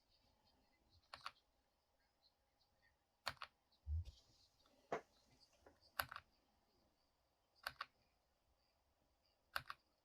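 Keys pressed one at a time on a slim Keychron K1 mechanical keyboard: about seven sharp clicks spaced a second or two apart, some in quick pairs. There is also a dull low thump about four seconds in.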